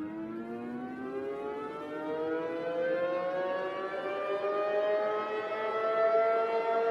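Outdoor civil-defense warning siren winding up, its pitch rising slowly and steadily as it grows louder.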